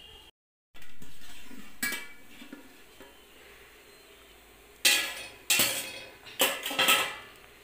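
Metal cookware clattering: the steamer pot, lid and perforated tray knocking together, with a clatter about a second in and four sharp metallic clinks a little past the middle, each ringing briefly.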